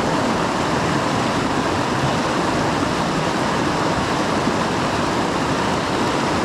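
Steady rushing of creek water, an even, unbroken hiss.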